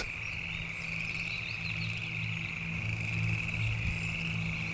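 Rainforest ambience: a continuous high-pitched trill of insects or frogs, with faint chirps above it, over a low steady music drone.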